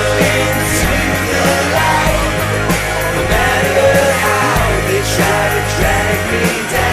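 Hard-driving rock song with distorted guitars, drums and a sung vocal line.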